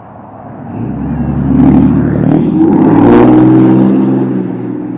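A motor vehicle driving past on the road. Its engine and tyre noise swell to a peak about three seconds in and then fade.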